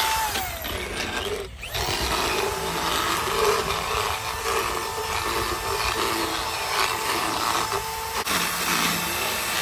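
Motorized equine dental float filing down a horse's teeth: a steady grinding and whirring, the motor's pitch dropping in the first half second and briefly dipping about a second and a half in.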